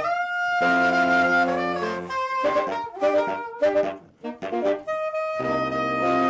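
Saxophone quartet playing in harmony: held chords, then a run of short, detached notes with a brief gap, then another sustained chord near the end.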